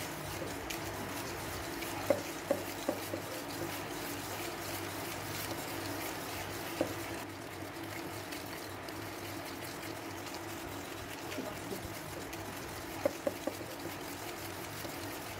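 Wire whisk beating butter and sugar by hand in a stainless steel bowl, creaming them for a cake batter: a steady wet swishing and squelching, with a few sharp clinks of the whisk against the bowl, a cluster of them near the end.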